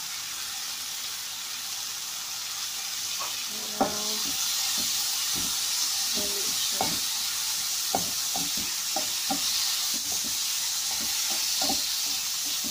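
Chicken, carrot strips and green vegetables sizzling as they are stir-fried in a non-stick pan, with a utensil knocking and scraping against the pan. A sharp knock about four seconds in, after which the sizzle is louder.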